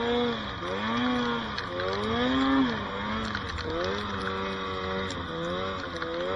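Snowmobile engine under load in deep powder, its pitch swinging up and down about once a second as the throttle is worked.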